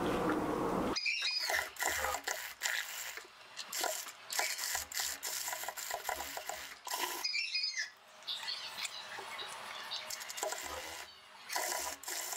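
Industrial sewing machine stitching, stopping about a second in; then lace net fabric rustling irregularly as it is lifted and smoothed by hand.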